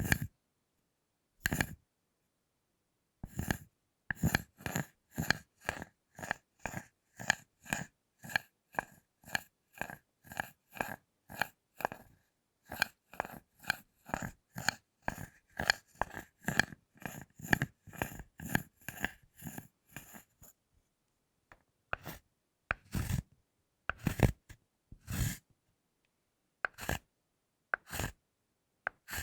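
Butter knife worked against a thick bar of chocolate in short, repeated strokes. The strokes come about two or three a second, then thin out to a few single strokes after about 20 seconds.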